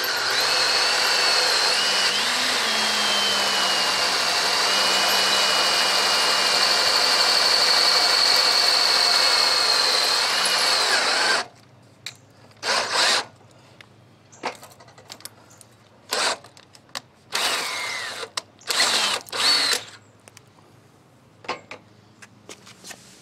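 Handheld power drill boring through aluminium tube: it runs steadily with a high whine for about eleven seconds, then stops. After that come several short bursts of the drill spinning up, the bit slipping in the chuck.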